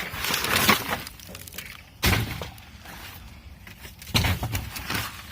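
Rummaging through debris in a dumpster, with two sudden loud knocks or clatters of items being tossed or dropped, about two and four seconds in.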